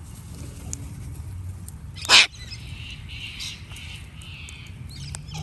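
Sulphur-crested cockatoos in a foraging flock. One gives a single short, loud, harsh screech about two seconds in, followed by softer calls from the flock.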